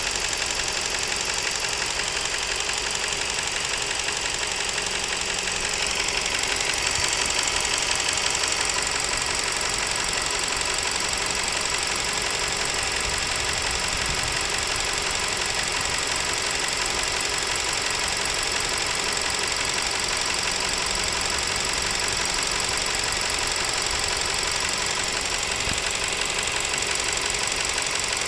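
Nissan Serena C27's MR20DD 2.0-litre four-cylinder petrol engine running steadily with a rapid, even knock, an extraneous knock from inside the engine. It grows a little louder for a couple of seconds from about six seconds in.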